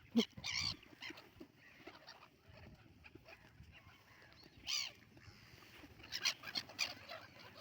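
Domestic fowl calling several times while being fed: two short calls at the start, one about halfway through and a quick run of calls near the end.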